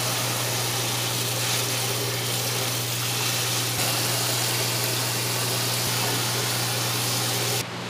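Tap water running hard into a stainless-steel sink as green onions are rinsed under it; the gush cuts off abruptly near the end. A steady low hum runs underneath.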